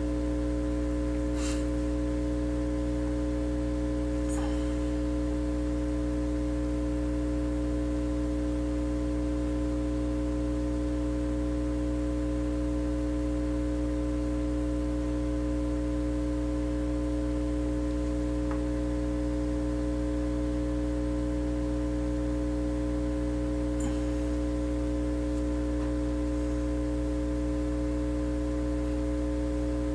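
Steady electrical hum made of several unchanging tones, with a faint tick about a second and a half in, another a few seconds later, and one more toward the end.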